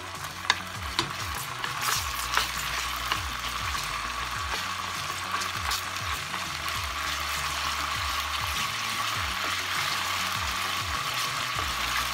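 Minced garlic sizzling steadily in hot olive oil in a frying pan, with a few sharp clicks of a utensil against the pan in the first few seconds.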